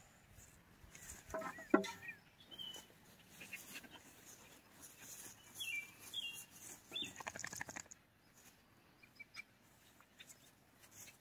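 Chickens clucking in short, scattered calls, with a few small high chirps between them.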